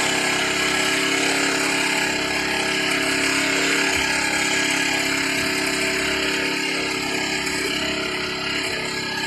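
Small engine running steadily at a constant speed, a loud, unchanging mechanical drone.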